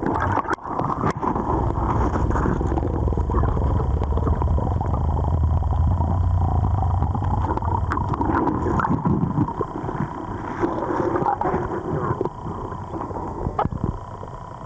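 Muffled low rumble and gurgling of river water around a submerged waterproof camera, with a few sharp knocks from digging in the riverbed.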